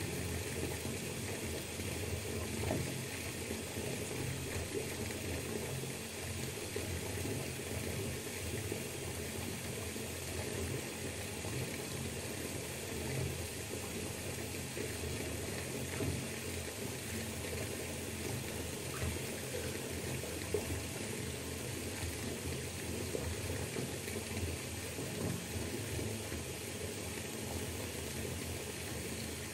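Bathtub filling from the tap: water pours steadily into the tub as an even, unbroken rush.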